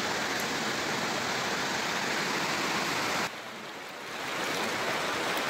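Steady rushing of a swollen, fast-flowing river. It drops suddenly a little past three seconds in and builds back up over about a second.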